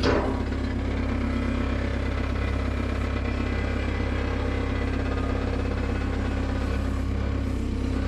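An engine idling steadily, with a short sharp knock right at the start.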